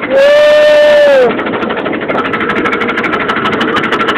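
An amusement ride running with a steady, fast mechanical rattle. Just after the start, a loud held high call cuts in for about a second and drops in pitch as it ends.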